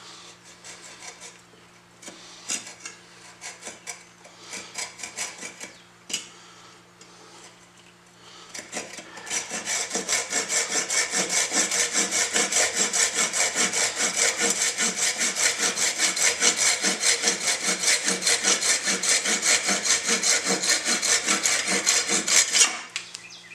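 Hand saw cutting through the old wooden axe handle where it meets the head: a few light, scattered strokes at first, then from about nine seconds in fast, steady back-and-forth sawing that stops shortly before the end.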